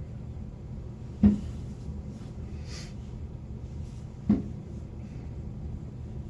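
Two sharp firework bursts, about three seconds apart, over a steady low background rumble.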